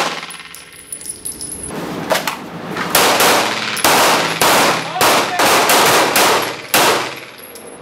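A string of about eight handgun shots, spaced irregularly a half second to a second apart, each echoing off the walls of an indoor shooting range.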